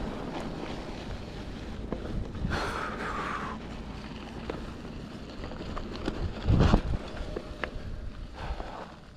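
Specialized Pitch mountain bike ridden over a dirt trail: steady tyre rumble on the ground and small clicks and rattles from the bike, with wind on the microphone. A brief high squeal comes about two and a half seconds in, and a loud thump comes a little after six seconds.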